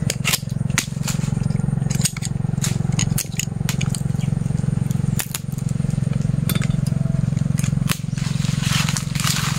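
Hand pruning shears cutting small jackfruit twigs and shoots: a string of sharp clicks and snaps, over a steady low rumble.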